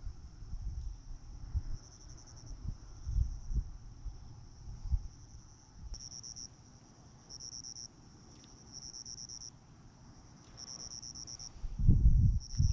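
Insects chirping: a steady high trill with louder pulsed bursts, each about a second long, coming several times in the second half. Low thumps and rumbling on the microphone are loudest near the end.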